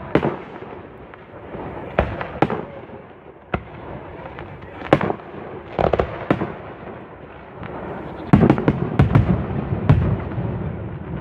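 Aerial fireworks display: single shell bursts go off with sharp bangs every second or two, then a rapid cluster of louder bangs with a deep rumble begins about eight seconds in.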